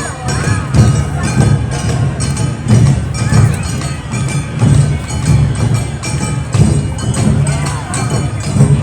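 Live Awa Odori festival music: taiko drums beat a steady, driving rhythm while a small hand gong clangs along, with pitched melody lines above.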